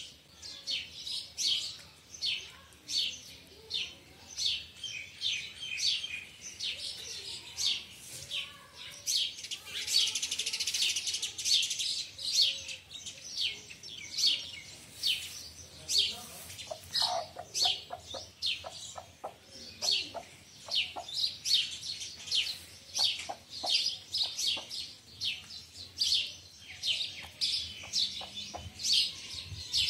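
Small birds chirping over and over, short high chirps about once or twice a second, with a run of lower, quicker calls about 17 seconds in.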